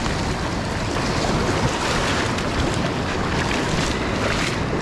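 Shallow sea water and small waves washing over a rocky reef flat, with a few brief surges of wash, and wind rumbling on the microphone.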